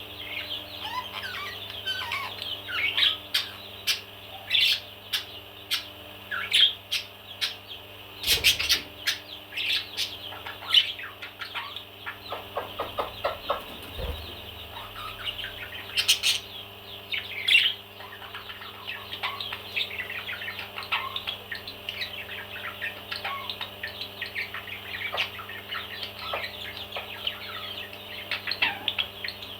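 Parrots chattering with a steady stream of short chirps and squawks, with a few louder, sharper calls around 8 seconds in and again around 16 to 17 seconds in.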